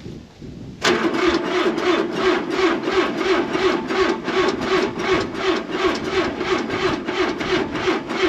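Electric starter cranking the cold John Deere engine of an Ingersoll Rand portable air compressor, starting about a second in. It turns over slowly and evenly, about four compression beats a second, without firing. The owner says the stock starter normally can't spin it fast enough to start in the cold.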